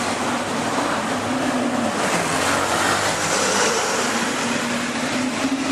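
A city bus idling at the stop as passengers board, its engine a steady hum under the noise of street traffic.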